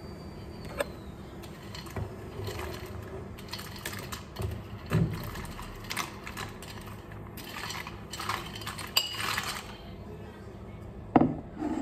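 A metal spoon scraping and clinking against a stainless steel saucepan and a ceramic plate as pasta is served out: a string of small clinks and knocks, the loudest a sharp knock near the end.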